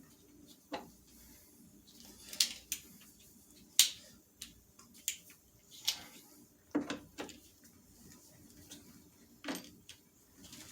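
Irregular sharp clicks and light knocks, about ten over the span, of small parts being handled and worked by hand.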